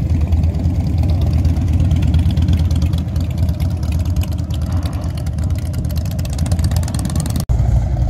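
Several Harley-Davidson cruiser and bagger motorcycles riding slowly past, their V-twin engines running with a deep, steady rumble.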